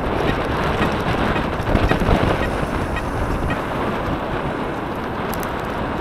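Wind buffeting the microphone of a bike-mounted camera on a moving recumbent bicycle: a steady low rumbling rush, with a few faint high clicks about five seconds in.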